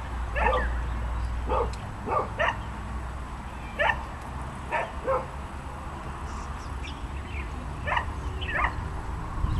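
A dog giving short, high yipping barks, about nine in all, in uneven groups of one to three.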